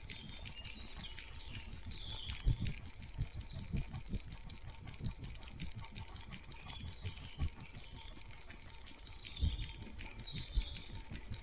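A dog walking on a gravel forest track, heard through a camera mounted on its head: irregular soft thumps and pattering of paws and the jostled mount, with a few harder knocks. Songbirds chirp in the background.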